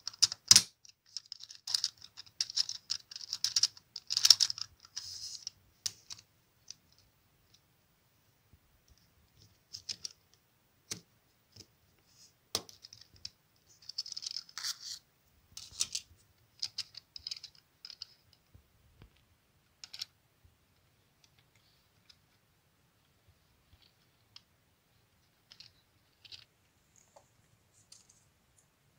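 Plastic LEGO Technic gears and transmission parts clicking and rattling as they are turned and shifted by hand. The clicks come in dense clusters for the first several seconds, then in scattered short bursts.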